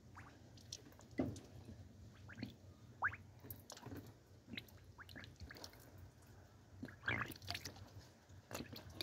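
Antifreeze dripping and bubbling from the open bleed port on a Land Rover Discovery 2's coolant hose, as irregular faint drips and small bubble pops: air is still being purged from the cooling system.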